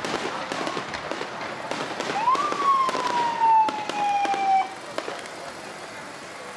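Aerial fireworks popping and crackling in a string of sharp reports. About two seconds in, a loud whistle-like tone rises quickly, then slides slowly down in pitch for about two and a half seconds before cutting off.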